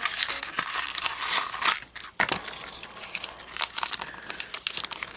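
Toy packaging being torn open and crinkled by hand: a thin cardboard blind box ripping and the wrapper inside it rustling, with a brief pause about two seconds in.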